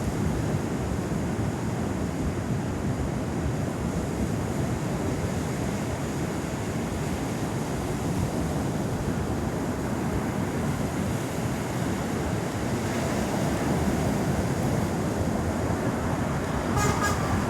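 Ocean waves washing steadily, with wind buffeting the microphone. A brief higher-pitched sound comes in near the end.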